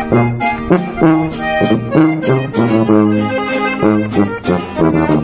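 Instrumental intro of a norteño-banda song: piano accordion playing the melody over sustained tuba bass notes and a strummed acoustic guitar, in a steady rhythm with no singing yet.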